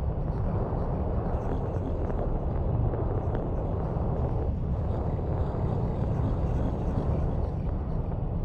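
Doppler ultrasound recording of a mother's venous blood flow: a rushing, whooshing noise that swells and eases, with a brief dip in the middle. Venous sounds like this vary with the mother's breathing.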